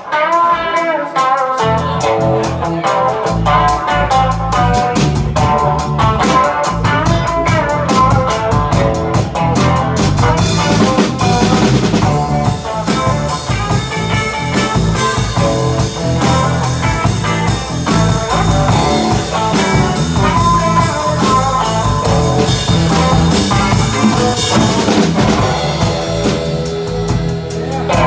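Live rock band playing loud: electric guitar with a drum kit, the drums and low end coming in about a second and a half in.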